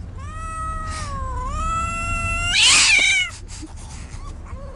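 Domestic cat giving one long, drawn-out yowl that dips slightly in pitch midway and rises again, ending about two and a half seconds in with a short, louder, harsher cry.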